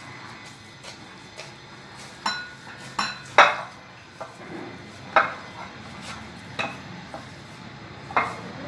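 Glass mixing bowl clinking and knocking as soft dough is kneaded by hand in it: about six sharp, ringing clinks at irregular intervals, the loudest about three and a half seconds in.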